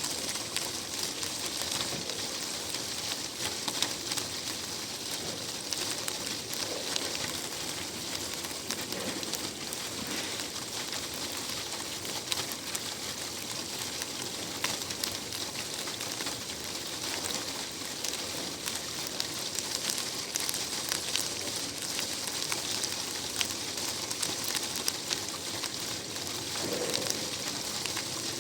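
Steady rain, a dense patter of many small drops falling without a break.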